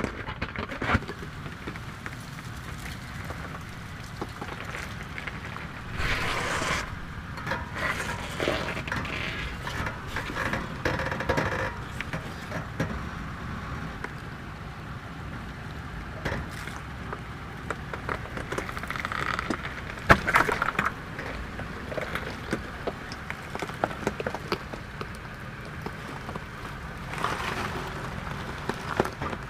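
Toyota 4Runner crawling slowly over a rocky off-road trail: a steady low engine rumble with intermittent crunching, clicks and knocks of tyres on rock and gravel.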